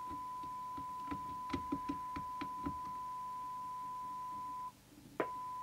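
Steady test tone from a signal generator, received by a York JCB861 CB radio and played through its speaker, with small clicks and knocks from a trimming tool working in the chassis as the squelch preset is adjusted. The tone cuts out near the end and comes back after a sharp click about half a second later.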